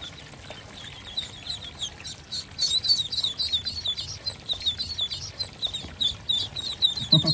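Ducklings peeping, a rapid run of short high-pitched peeps that thickens and grows louder about two and a half seconds in.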